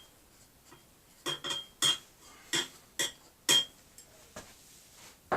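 Metal hand tools clinking: about six sharp metallic clinks with a short ring, roughly half a second apart, then a single dull knock near the end.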